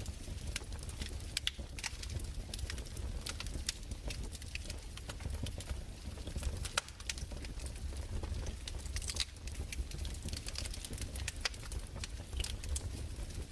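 Fireplace crackling: irregular sharp pops and snaps over a low, steady rumble.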